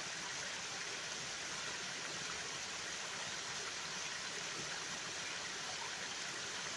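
A small stream spilling down over mossy rocks in little waterfalls: a steady, even rush and splash of running water.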